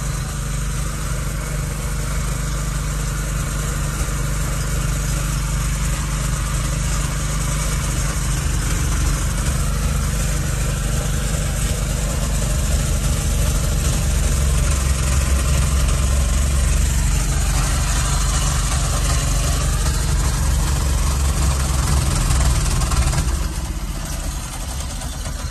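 Harbor Freight Predator 212cc single-cylinder engine running inside the car's cabin, driving a generator; it grows a little louder, then dies away near the end, which the owner takes for it running out of gas.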